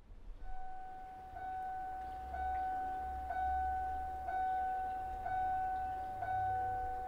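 A Toyota SUV's door-open warning chime: one steady electronic tone, struck again about once a second, over a low rumble.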